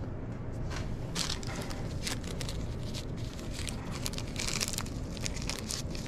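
Paper wrapper of a new Coleman lantern mantle being crinkled and pulled open by hand: a run of irregular crackles, loudest about a second in and again past the middle.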